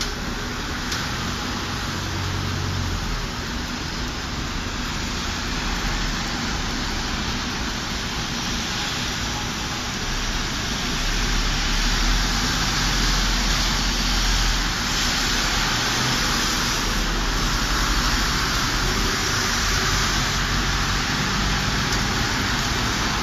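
Steady hiss of city traffic on a wet, slushy street: car tyres and engines, with a low rumble getting a little louder about eleven seconds in.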